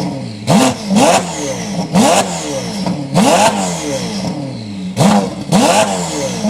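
Ferrari supercar engine revving hard in repeated quick climbs in pitch, each cut off sharply before the next.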